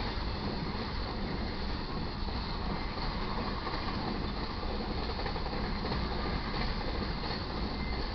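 Freight train of flatcars loaded with truck trailers rolling past: a steady rumble and clatter of steel wheels on the rails.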